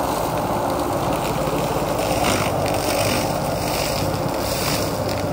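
Menzi Muck walking excavator's diesel engine running steadily under hydraulic load.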